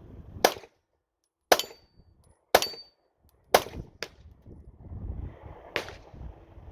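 Glock 9mm pistol fired five times, about a second apart for the first four, then a longer pause before the last shot, with a fainter sharp knock just after the fourth.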